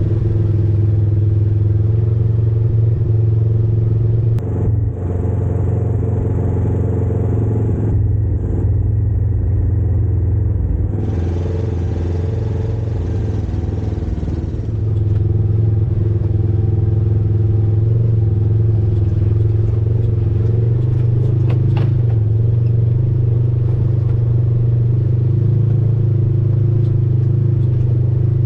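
Off-road vehicle engine running steadily while driving along a dirt trail.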